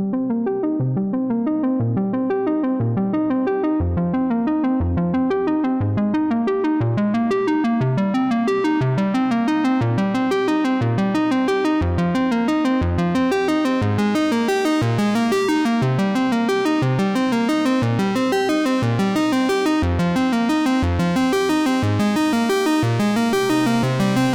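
Background music: a synthesizer and keyboard tune over a steady low pulse about once a second. It starts suddenly and grows brighter and fuller as it goes on.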